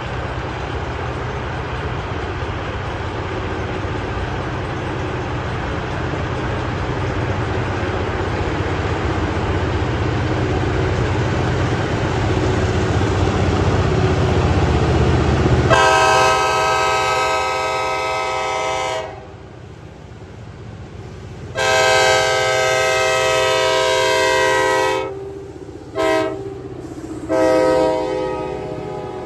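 A freight train led by three EMD GP38-series diesel locomotives approaches, its diesel rumble growing steadily louder. About halfway in, the lead locomotive's multi-tone air horn sounds the grade-crossing signal: two long blasts, a short one and a final long one, with the engines rumbling underneath.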